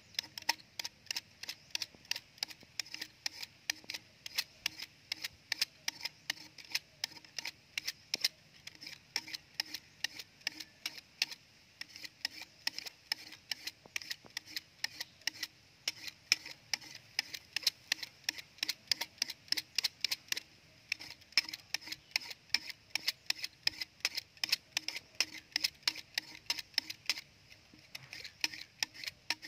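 A small knife blade scraping the outer skin off a dry bamboo tube in quick, regular strokes, about three a second.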